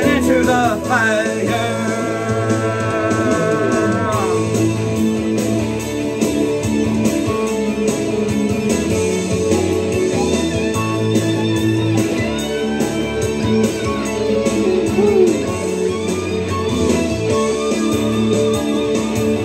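Instrumental break of a rock song with guitar over the band, played as a karaoke backing track. It opens with a long held note.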